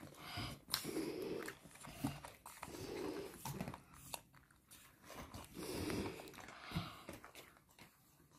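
Baby monkey sucking milk through a straw from a small carton: several noisy slurping pulls a second or two apart, with small clicks between them.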